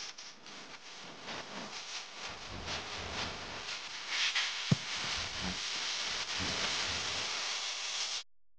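Electric hair clippers buzzing low under the heavy hiss of an old videotape recording, with one sharp click about four and a half seconds in. The sound cuts out suddenly near the end.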